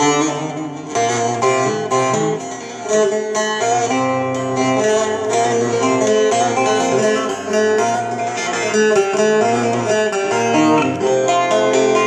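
Bağlama (Turkish long-necked saz) played in a continuous run of plucked notes, with its built-in EQ's transpose shifting the tonic (karar) to F-sharp.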